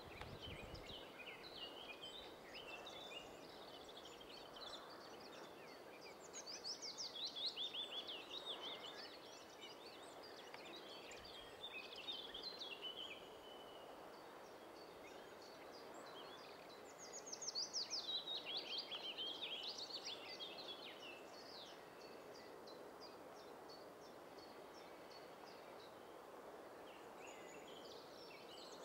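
A songbird singing over faint steady outdoor background noise: two louder song phrases, each a fast run of notes falling in pitch over about two seconds, roughly ten seconds apart, with fainter twittering between them.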